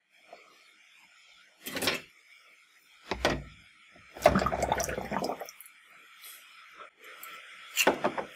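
Rusty steel bayonet parts (blade, scabbard and grip plates) being set down one by one in a plastic tub of water, knocking against the plastic. There are a few short knocks and a longer rattling clatter around the middle, over a faint steady hiss.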